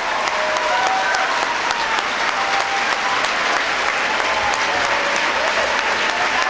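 Audience applauding steadily, a dense clapping that holds at the same level throughout.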